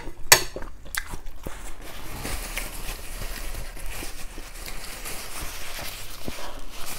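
A metal spoon clinks twice against the soup bowl in the first second, then a paper tissue rustles and crinkles softly as it is unfolded and pressed to the nose.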